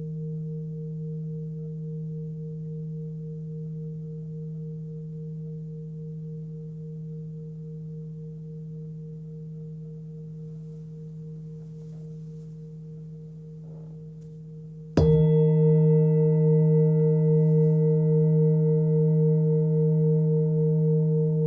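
A 21.7 cm forged Tibetan singing bowl, fundamental about 158 Hz (D#), ringing with a wavering hum and slowly fading, then struck again about fifteen seconds in and ringing out louder with several higher overtones.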